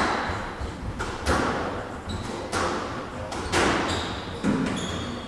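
Squash rally: the ball cracking off rackets and the walls about five times, roughly once a second or so, each hit echoing around the court, with short high squeaks of shoes on the hardwood floor between the hits.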